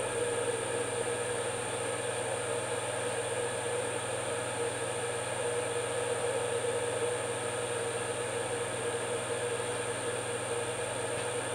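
Water-cooled 2.2 kW CNC spindle driven by a Huanyang VFD, running at a low commanded speed of 1000 RPM (16.66 Hz): a steady hum with a thin high whine over it.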